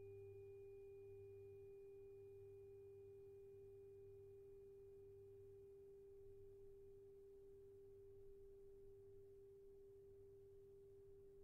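Faint, steady 396 Hz tuning-fork tone held without a break. A higher ringing overtone fades out about halfway through, and a low hum wavers slowly beneath it.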